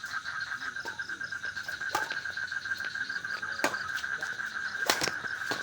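A steady, fast-pulsing trill from a calling animal, with four sharp clicks at uneven intervals, the loudest about five seconds in.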